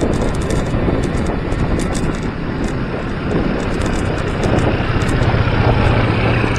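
Wind buffeting the action camera's microphone during a fast bicycle descent at about 16 mph. A motorcycle engine drones steadily underneath and gets louder in the second half as the bike passes it.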